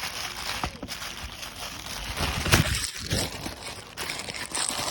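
Plastic packaging crinkling and rustling as it is handled, with a few dull knocks a little over two seconds in.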